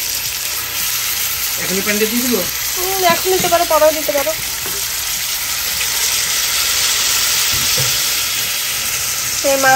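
Marinated whole fish frying in butter in a pan, a steady sizzle.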